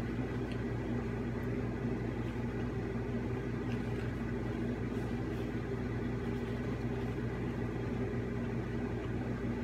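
A steady low mechanical hum, like a running appliance or fan, with a few faint soft clicks.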